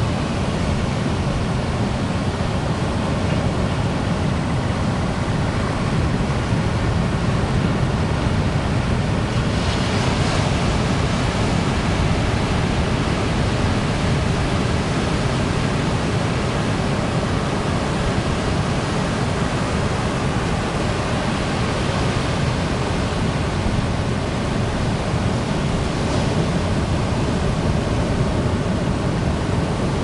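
Ocean surf breaking on a beach: a steady wash of rolling waves, with a brighter crash of a breaking wave about ten seconds in and another later on.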